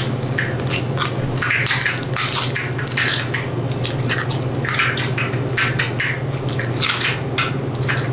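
Butcher's knife cutting through the meat and sinew of a hanging beef hindquarter's shank, in a quick, irregular run of short scraping strokes. A steady low hum runs underneath.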